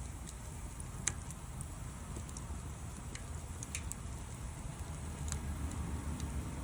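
Wood fire crackling: scattered sharp pops and snaps over a low rumble, with the loudest pop about a second in.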